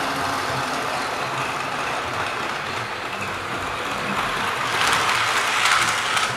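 Model Class 47 diesel locomotive and its coaches running along model railway track: a steady whirring rumble of motor and wheels that grows louder as the train passes close by about five seconds in, with quick clicks from the wheels crossing rail joints.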